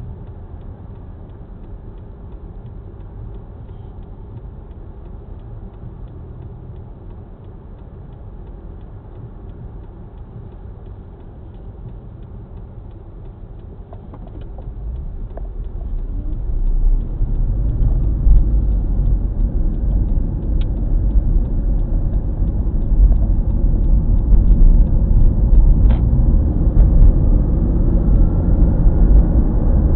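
Car heard from inside the cabin: a low, quiet idle rumble while stopped, then from about 14 s in engine and tyre noise rise as the car pulls away and settles into a louder steady rumble while driving.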